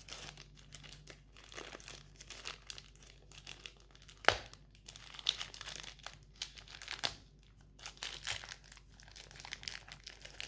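Packaging crinkling and rustling while the charging cable is unwrapped and taken out of the box, with scattered small clicks and one sharp click about four seconds in.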